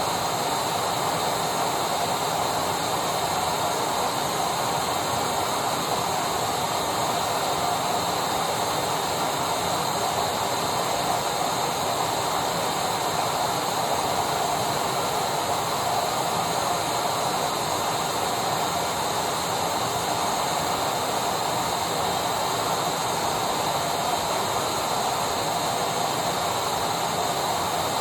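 Vacuum cleaner running steadily: an even, unchanging rushing noise with a faint high whine above it.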